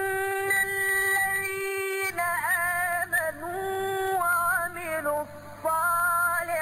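A Quran reciter's voice chanting in tajwid style. It holds one long drawn-out note for about two seconds, then moves through a series of melodic rising and falling turns, with short breaks between phrases.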